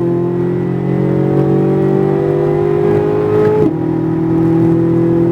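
Corvette Z06's V8 engine at full throttle down a straight, the pitch climbing steadily as it pulls, with an upshift at the very start and another about three and a half seconds in.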